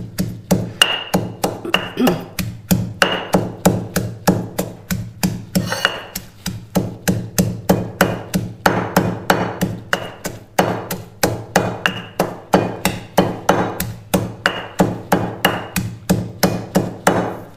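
Stone pestle pounding mint leaves in a heavy marble mortar (kundi), a steady run of strikes at about three to four a second. Some strikes give a short ring off the stone.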